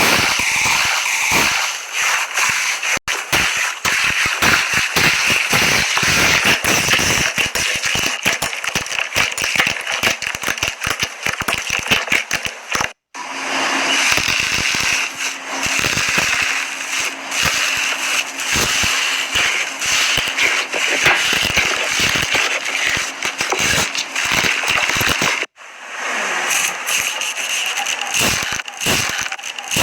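Slime being handled, making dense crackling and popping with many small clicks and pops. It breaks off abruptly three times, where one clip cuts to the next.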